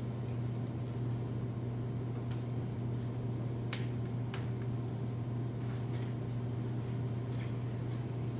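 Steady low hum of room tone, with two faint clicks a little after the middle.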